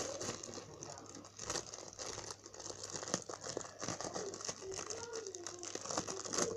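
Squishy-toy packaging crinkling and crackling in irregular bursts as it is handled and opened.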